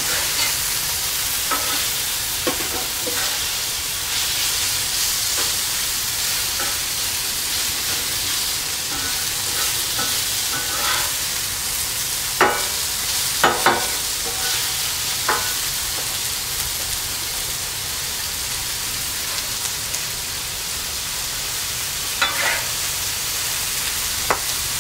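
Diced chicken thigh sizzling steadily on a Blackstone flat-top griddle, with a few sharp metal clacks and scrapes of spatulas and the dome on the griddle top, several about halfway through and more near the end.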